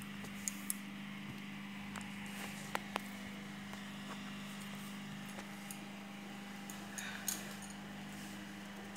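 Steady low hum with a handful of small sharp clicks and taps from handling, scattered through, the loudest few near the start and one about seven seconds in.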